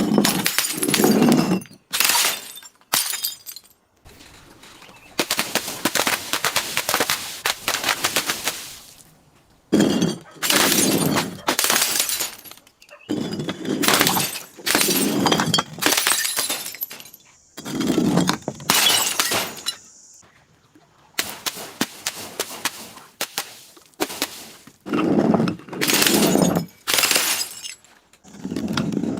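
Glass bottles breaking and being crushed: about eight separate bouts of crunching and shattering glass, each lasting one to three seconds with brief pauses between.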